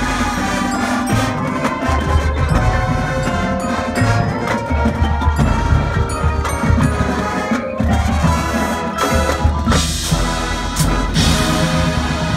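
High school marching band playing its field show, with the front ensemble's mallet percussion over sustained band chords and a strong low bass line.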